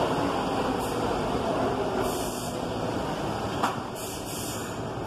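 R62A subway train pulling into the station and slowing to a stop, its running rumble fading. Several short air hisses come through, and there is a sharp clank about three and a half seconds in.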